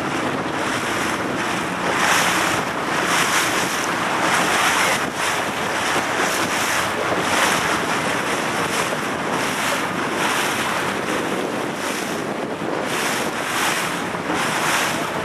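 Wind buffeting the microphone in uneven gusts, over water splashing and rushing around a small boat.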